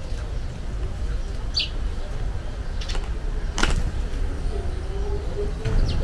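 A few short, high bird chirps over a steady low outdoor rumble, with a sharp click about three and a half seconds in.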